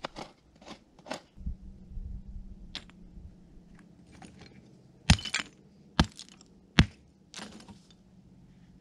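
Rock hammer striking rock three times, sharp cracks a little under a second apart near the middle, while breaking rocks open to look for garnets. Before them, shorter scrapes and clicks of loose stones being moved by hand.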